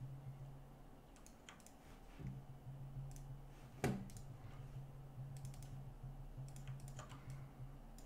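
Scattered faint clicks of a computer keyboard and mouse, with one sharper click about four seconds in, over a low steady hum.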